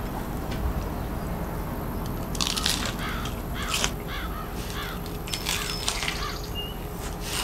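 Steady outdoor background with a bird calling, a quick run of short rise-and-fall notes from about two to six seconds in, and a brief thin chirp near the end.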